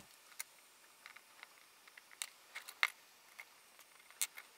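Faint, scattered clicks and taps of small metal parts as M5 bolts are driven with a hex screwdriver to fix a mounting plate onto a NEMA 23 stepper motor.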